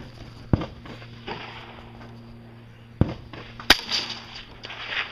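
Rifle shots fired at a practical rifle match: three sharp reports, one about half a second in and two more close together around three seconds in.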